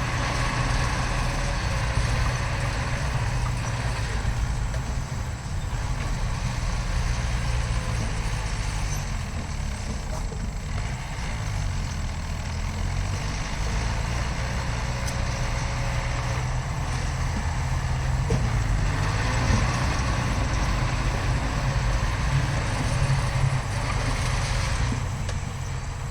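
Heavy diesel earthmoving machinery running steadily, its low engine note rising and falling a little as it works.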